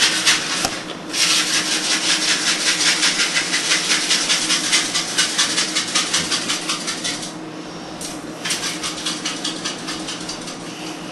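Sprinkles being shaken from a shaker container: a fast, even rattle-hiss, about eight shakes a second, in two bouts with a short pause after about seven seconds.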